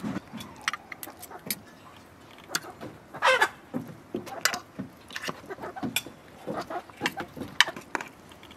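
Metal forks and spoons clinking and scraping against a metal serving tray and plates as cooked meat and rice are lifted and served: irregular sharp clinks, with one louder, longer scrape about three seconds in.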